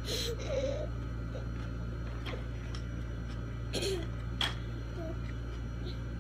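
Steady low hum of room tone, with faint voices in the background and a few soft clicks.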